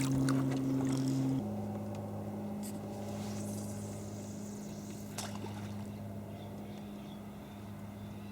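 Motorboat engine running steadily with a low hum; its pitch drops a step about a second and a half in, and it slowly grows fainter.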